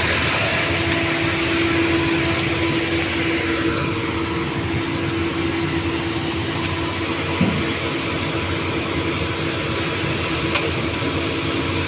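Doosan 225 excavator running steadily, a constant engine and hydraulic hum with no change in pitch. There is one short knock about seven and a half seconds in.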